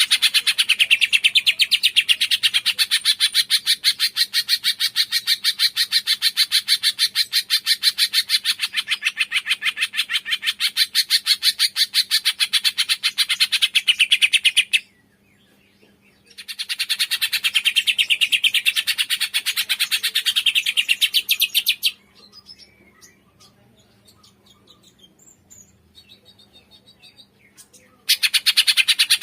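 Cungkok songbird singing a long, fast trill of rapidly repeated high notes. It breaks off for a second and a half about halfway through, then resumes. Later it gives way to a few faint scattered chirps for about six seconds before the trill starts again near the end.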